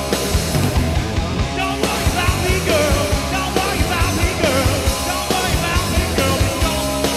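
Rock band playing live, with drums, bass and electric guitar and a singer's voice over them, recorded straight from the mixing board.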